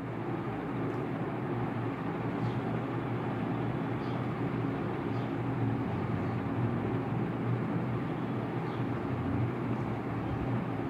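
Steady background noise with a low hum, unchanging throughout.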